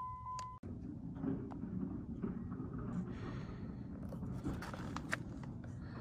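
A steady electronic tone cuts off suddenly about half a second in. It is followed by a low rumble of handling noise, with scattered light clicks and scrapes as a handheld phone moves around a car interior.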